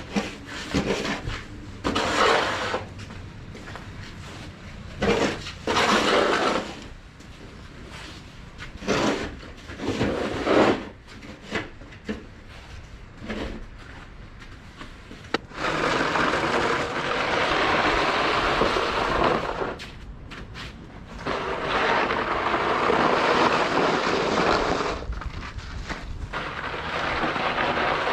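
Snow shovel scraping across pavement while clearing snow. Short separate scrapes come first, then from about halfway through, longer pushes lasting several seconds each.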